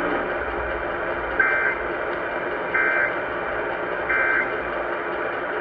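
EAS End-of-Message data bursts: three short, identical two-tone digital squawks about 1.4 s apart over a steady hiss of radio noise, the signal that the alert has ended.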